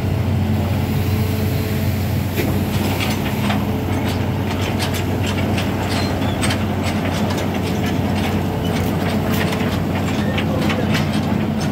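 Hitachi amphibious excavator's diesel engine running steadily with a deep hum, while irregular metallic clicks and clanks, typical of its pontoon track chains, start about two and a half seconds in and keep on.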